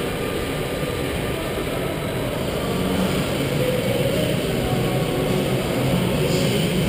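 Electric go-kart driven at speed round an indoor concrete track, heard from on board: a steady rush of motor, tyre and chassis noise that grows a little louder about halfway through.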